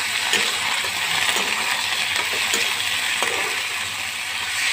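Raw broiler chicken pieces sizzling in hot mustard oil with fried onions in a kadai, a steady frying hiss, while a spatula stirs them with a few light clinks and scrapes against the pan.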